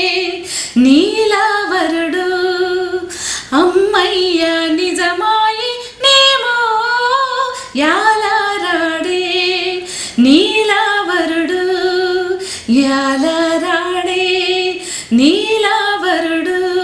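A woman singing a Telugu song unaccompanied. The phrases come about every two and a half seconds, each sliding up into a long held note with vibrato.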